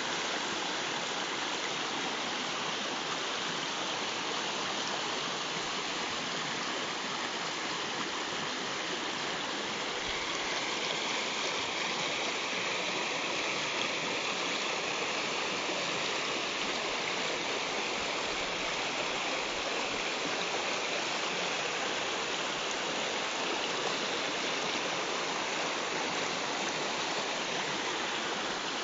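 Shallow, rocky stream flowing over stones and through small rapids: a steady, even rush of water.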